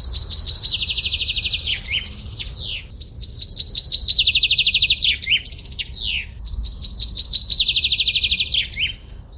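A songbird singing the same phrase three times, each a run of quick falling notes going into a fast, even trill and ending with a couple of slurred notes. This is the birdsong that sounds when the timer runs out.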